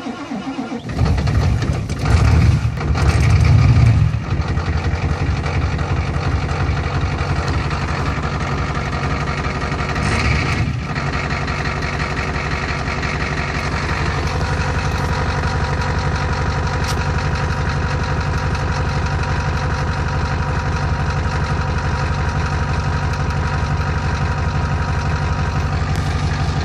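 Ford 7.3L IDI V8 diesel cold-starting at about −12 °C after the glow plugs were cycled twice and without a block heater: it starts about a second in, runs loudest for the first few seconds, then settles into a steady idle, with a brief rise around ten seconds in.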